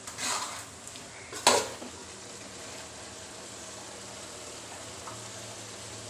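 A metal spoon scraping and clinking in an aluminium cooking pot as food is served, with one sharp clink about a second and a half in; a steady hiss runs on after it.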